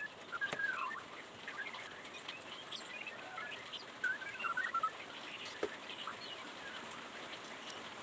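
Birds chirping in short, scattered calls, with a few faint ticks between them.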